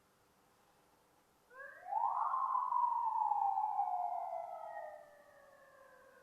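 Police siren sounding one wail: about a second and a half in it sweeps quickly up in pitch, then slowly falls for about three seconds and fades out.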